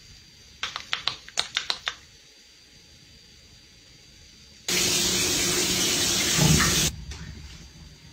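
A quick run of wet, squishy clicks as face cleanser is rubbed into a lather between the hands. Then a water tap runs steadily for about two seconds and stops abruptly.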